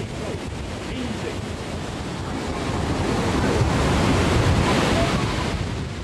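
Tsunami surge rushing ashore: a dense noise of churning, crashing water with wind buffeting the microphone, swelling to its loudest about four seconds in and falling away near the end.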